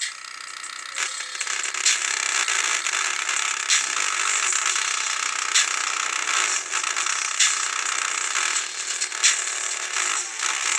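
Steady mechanical rattling and scraping, with a sharp click about every two seconds.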